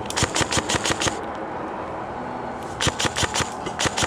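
Airsoft guns firing on full auto in two short bursts of rapid shots, about seven a second. The first burst lasts about a second, and the second starts near three seconds in.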